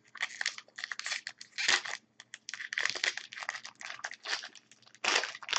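A foil pack of hockey trading cards being torn open, the wrapper crinkling and ripping in a string of short, irregular rustles, with a brief pause about two seconds in.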